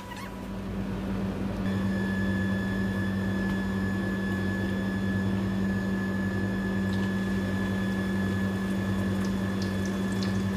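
A steady mechanical hum with a rushing noise, like a small electric motor running. It switches on at the start and builds over the first second or two.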